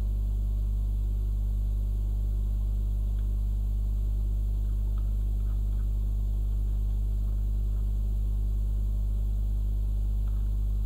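Steady electrical mains hum, a low 50 Hz drone with its overtones, with a few faint clicks scattered through it.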